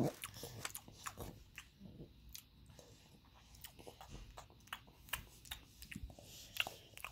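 Faint, scattered small clicks and soft rustles: handling noise from the phone and the objects being moved over the carpet, with a few soft knocks.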